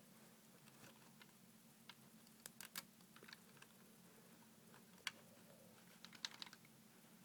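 Faint, scattered clicks and taps of Lego plastic pieces being handled and worked, a dozen or so irregular clicks against near silence.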